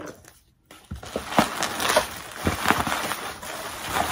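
Plastic bubble wrap crinkling and crackling as a wrapped item is handled and pulled out of a box, starting about a second in.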